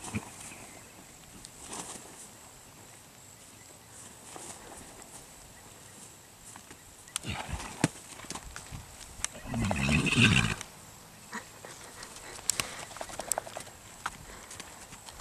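A Thoroughbred mare rolls in the dirt and scrambles to her feet, with scattered thuds from her hooves and body on the soft ground, heaviest about seven to eight seconds in. About ten seconds in there is one loud horse vocalization that lasts about a second.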